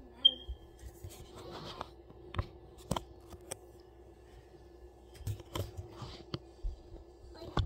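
Low-level steady hum with a short high beep about a quarter second in, then scattered light clicks and taps, more of them near the end as the recording phone is handled.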